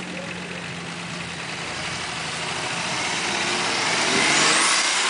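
Off-road 4x4's engine running and revving, growing louder to a peak about four seconds in.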